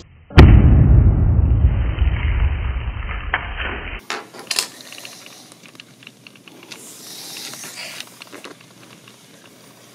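A small hydrogen–air explosion inside a Mylar snack bag, set off by a lighter flame. There is a single sharp bang about half a second in, which dies away over about three seconds in a low rumble. After that come only a few faint ticks and clicks.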